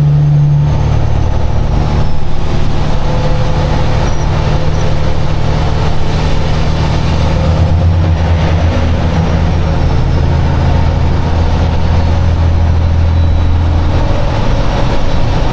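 Diesel semi-truck engine droning steadily under way, heard from inside the cab with road and tyre noise, its low note shifting in pitch near the start and again about halfway through.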